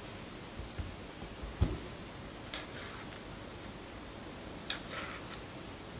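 A few faint, scattered clicks and one soft knock about a second and a half in: small handling noises as a tomato and knife are moved about over a countertop, with quiet room tone between.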